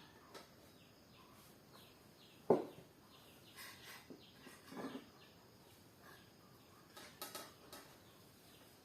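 Faint clicks and taps of a meal being eaten, with one sharper knock about two and a half seconds in, and birds chirping faintly in the background.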